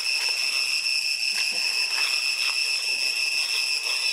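Cicadas droning in a steady high-pitched whine with higher overtones.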